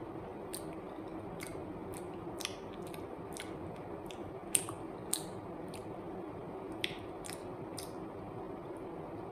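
A woman chewing and biting soft banana, with wet lip smacks and mouth clicks at irregular moments, the sharpest about four and a half seconds in. A steady low hum runs underneath.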